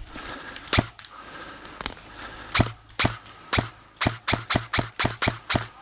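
Airsoft gun firing single shots: a few spaced shots, then a quick string of about eight at roughly four a second near the end.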